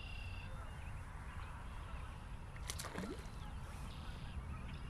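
Wind rumbling on the microphone, with birds singing. There is a high trilling song at the start and again near the end, and a short call sliding down in pitch about three seconds in.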